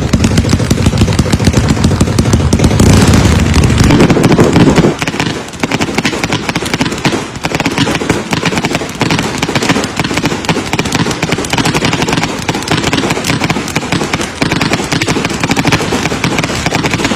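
Fireworks going off in a loud, rapid, continuous crackle of small bangs. A heavy low rumble underlies the first few seconds and drops away about five seconds in, leaving the crackling to carry on.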